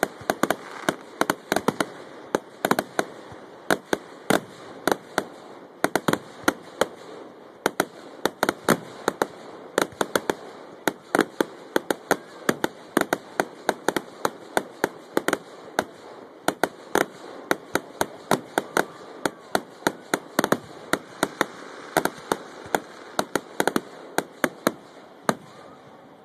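Fireworks display: a rapid, continuous barrage of aerial shell bursts, several sharp bangs a second over a steady crackle. The bangs stop near the end.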